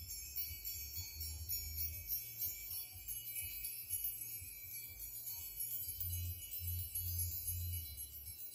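Soft tinkling chimes over a deep low tone that comes and goes: a chime-and-drone music bed under the guided meditation.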